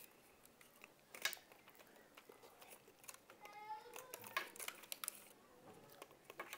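Quiet eating sounds: a metal spoon clicking and scraping in a foil tray of momo, with a few sharp clicks, the loudest about a second in. A short high-pitched cry is heard about three and a half seconds in.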